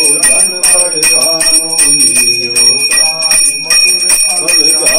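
A brass puja hand bell (ghanti) ringing steadily while a man chants Sanskrit mantras in a sing-song voice during worship.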